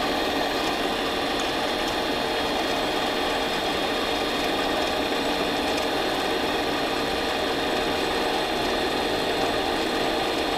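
Harbor Freight mini lathe running at a steady speed, its spindle turning a steel shaft. It gives an even mechanical whine made of several steady tones.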